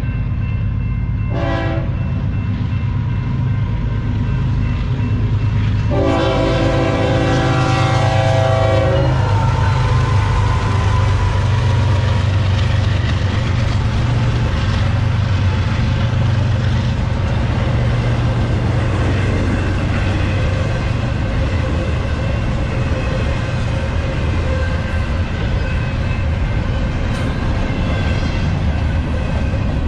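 Two GE Evolution-series (GEVO) diesel locomotives leading a freight train past a level crossing. The horn gives a short blast about a second and a half in and a longer blast from about six to nine seconds, over the steady rumble of the engines and the double-stack container cars rolling by.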